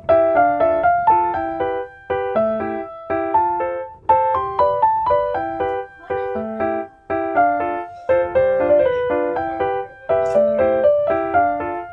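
Background music: a light, repeating piano or keyboard melody in short phrases of about a second each.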